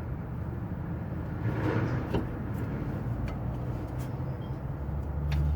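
Brake caliper parts being handled and fitted by hand, giving a few light clicks and knocks and a brief scraping rustle about a second and a half in, over a steady low rumble.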